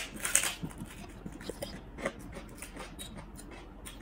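Crisp fried prawn crackers being bitten and chewed: a sharp crunch at the start, a burst of crackling just after, then scattered smaller crunches that thin out.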